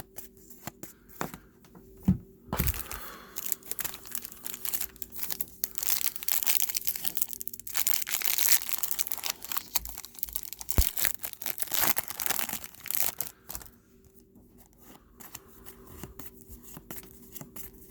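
Trading-card pack wrappers being torn open and crinkled by hand, with cards handled. The crinkling is densest through the middle and dies down to quieter scattered rustles near the end.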